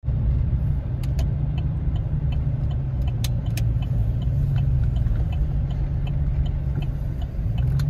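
Vehicle engine running steadily with a deep rumble, with faint light ticks about two or three times a second.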